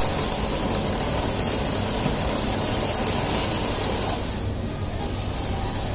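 Industrial sewing machine with a ruffler attachment stitching pleats into fabric, running at a fast, steady pace; the stitching stops about four seconds in, leaving a low hum.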